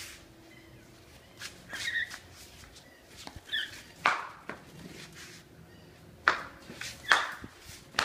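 Footsteps on a tiled floor, irregular, with two louder steps late on, and short chirps from a cockatiel about two seconds in and again around three and a half seconds.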